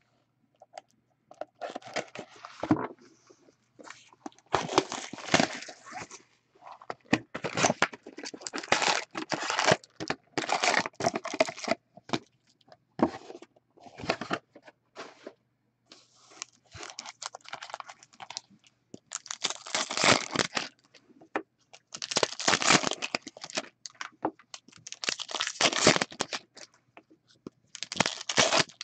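Packaging of a box of 2015-16 SP Authentic hockey cards being torn open and crumpled by hand: repeated, irregular bursts of ripping and crinkling wrapper.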